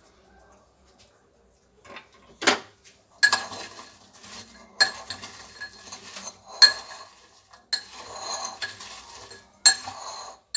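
A spoon clinking and scraping against a ceramic bowl while crisp fried potato pieces are tossed with spices. Quiet for the first two seconds, then sharp clinks every second or two with scraping and rustling between.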